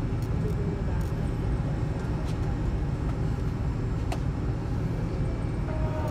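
Steady low rumble inside the cabin of a McDonnell Douglas MD-88 taxiing, its rear-mounted Pratt & Whitney JT8D engines at idle, with a couple of faint clicks.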